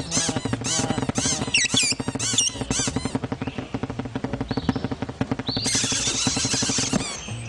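Cartoon small birds chattering in rapid, squeaky chirps and squawks, busiest in the first few seconds, then a hissing burst with a held high note for about a second near the end.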